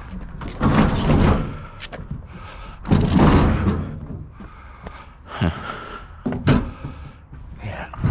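Heavy washing machine being heaved and shoved into a truck: two long stretches of scraping and banging of its metal cabinet, then a couple of sharp knocks.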